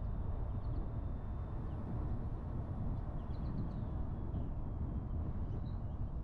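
Steady low rumble of a car driving along a paved road, mostly road and tyre noise, with a few faint bird chirps now and then.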